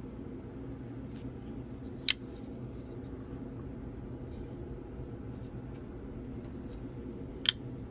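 Two sharp metallic clicks, about five seconds apart, from folding pocket knives being handled, over a steady low room hum.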